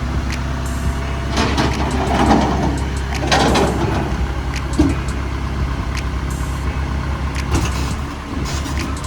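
A motor vehicle's engine running steadily at idle, a low even hum, with a few louder noisy swells and a brief knock about a third of the way through.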